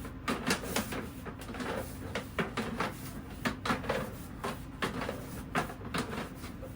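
Irregular clicking and knocking, several sharp clicks a second, from plumbing equipment being worked and handled, over a steady low hum.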